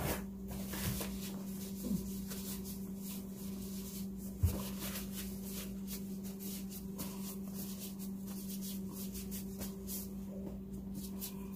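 A steady low hum with faint rustling and light ticks, and one soft knock about four and a half seconds in.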